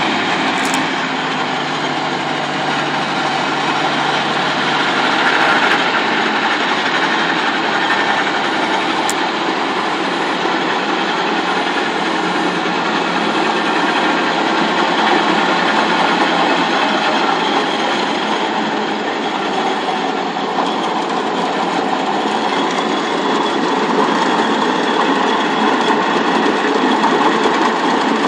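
Fortschritt E512 combine harvester running close up: a loud, steady mechanical clatter that holds level throughout.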